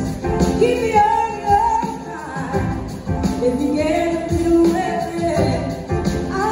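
Live rock band playing a song, a woman singing the lead melody over electric guitar and a steady drum beat, heard from the audience in a large hall.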